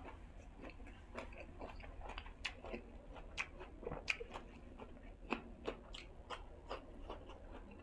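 A person chewing food close to the microphone: a run of irregular short clicks and crunches, several a second.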